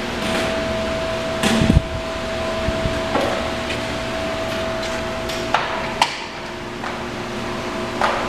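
Workshop background: a steady machine hum with a held high tone, and scattered sharp knocks and clanks, the loudest a quick cluster about one and a half seconds in, with single knocks later.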